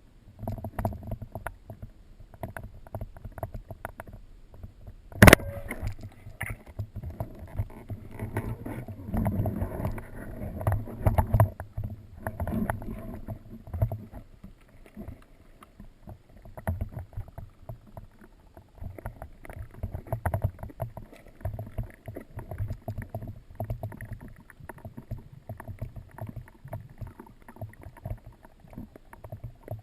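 Underwater noise heard through a GoPro's waterproof housing: irregular muffled knocks and sloshing of water and movement. One sharp, loud crack comes about five seconds in.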